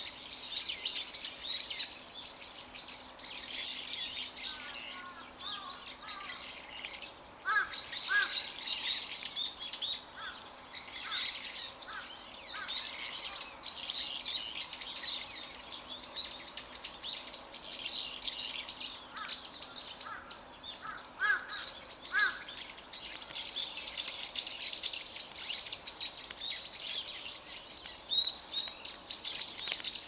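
Small songbirds chirping and twittering busily, many quick high notes overlapping throughout, with a few short, lower calls mixed in.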